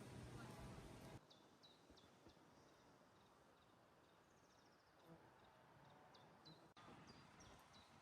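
An insect buzzing for about the first second, then stopping abruptly. Faint, short, high bird chirps follow, repeating a few times a second with one brief trill, over a quiet background.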